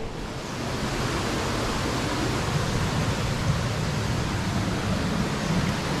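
Water rushing over rocks in a forest stream below a waterfall: a steady rush that grows louder about a second in.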